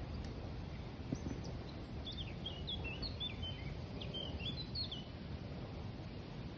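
Steady low outdoor background noise, with a bird singing a quick string of short, varied high chirps for about three seconds in the middle.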